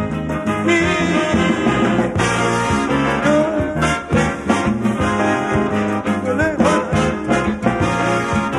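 Live calypso band playing an instrumental break: a horn section of trombone and trumpets carries the melody over electric guitar and drums, with a steady beat.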